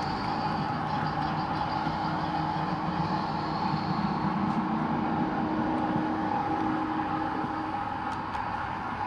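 HO-scale model train running along the track, a steady mechanical running noise with a constant hum.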